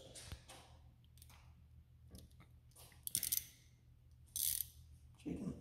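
Ratchet wrench being fitted with a socket and extension: a few light clicks, then two short clicking rattles about three seconds in and again a second or so later.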